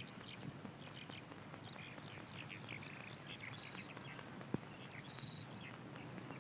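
Faint birdsong: many short chirps and whistles from several birds over a low steady hiss, with a single sharp click about four and a half seconds in.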